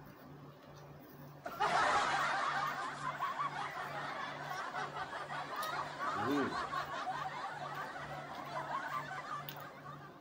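Close wet chewing and smacking of a mouthful of instant noodles, starting abruptly about one and a half seconds in and fading toward the end.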